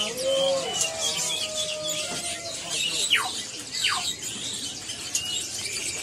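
A busy chorus of small caged finches, yellow-fronted (Mozambique) canaries among them, chirping and twittering. Two quick downward-sliding whistles sound about three and four seconds in.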